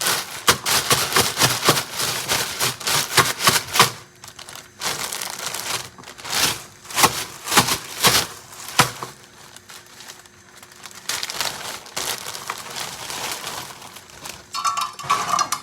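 Crinkling and rustling, like plastic or paper packaging being handled, in quick runs of crackles with two short pauses.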